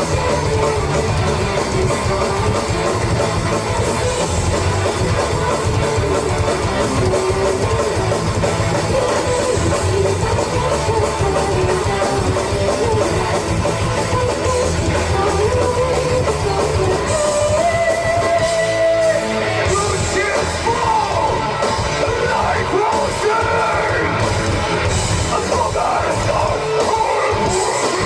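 Rock band playing live, with electric guitar and singing, loud and dense. The low end thins out for a moment about nineteen seconds in.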